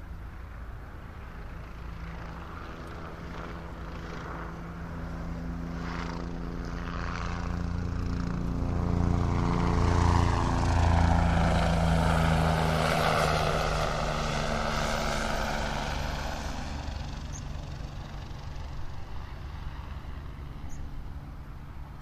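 Airliner flying overhead. Its engine noise swells to a peak about halfway through, the pitch drops as it passes, and then it fades away.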